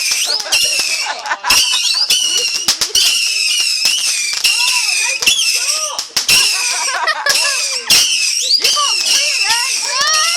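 Fireworks going off: many sharp cracks and bangs in quick succession, over continuous high-pitched squealing tones that slide up and down in pitch.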